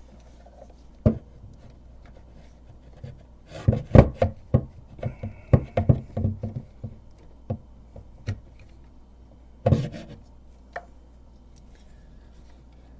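Knocks, clicks and rubbing of hands and tools working the drain hose and its clamp off a dishwasher's overfill sensor assembly: a few single knocks, a dense flurry of them in the middle with a brief high squeak, and one more loud knock near the end.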